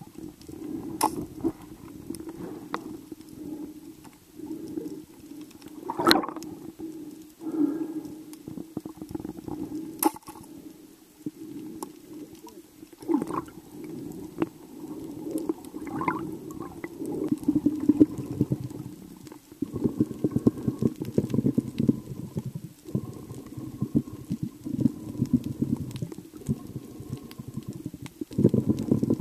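Muffled underwater sound picked up through a camera held below the surface: a low rush of water and bubbling, with a few sharp clicks in the first third and denser crackling from about two-thirds of the way in.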